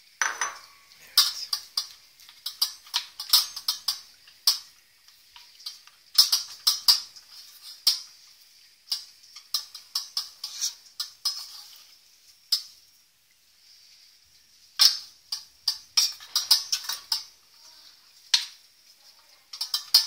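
Metal spoon stirring and scraping around a stainless steel pot of half-melted chocolate pieces in a double boiler, in irregular runs of quick clinks and scrapes with a short pause about two-thirds of the way through.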